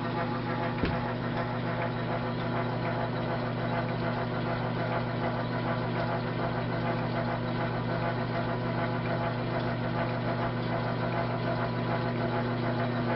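South Bend lathe running with a steady hum while a die is fed onto the work, with a small click about a second in.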